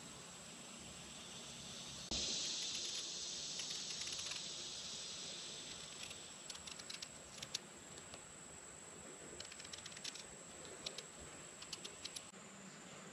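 A small knife peeling a raw potato by hand: from about two seconds in a hissing scrape that fades over a few seconds, then a run of small, irregular clicks and scrapes as strips of skin are cut away.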